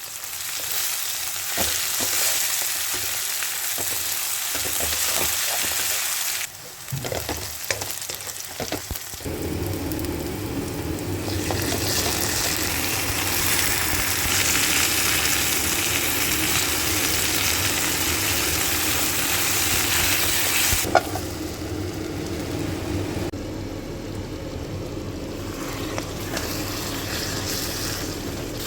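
Arbi (taro root) pieces frying in hot oil in a pan, a steady sizzle with stirring. The sizzle drops briefly about seven seconds in, with a few knocks, and there is one sharp knock about twenty-one seconds in, after which the sizzle is softer.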